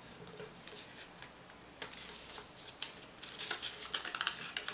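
A sheet of A4 paper being folded by hand: rustling and crackling as the small corner triangles are tucked inward and the creases pressed flat. The sounds are sparse at first and come quicker and louder over the last second and a half.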